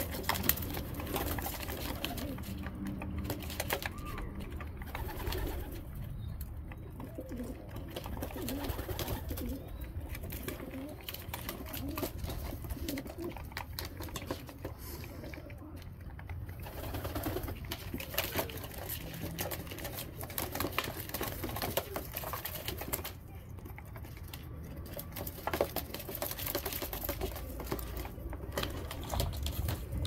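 Domestic pigeons cooing while they feed, with scattered light clicks of beaks pecking treat food from a plastic tub.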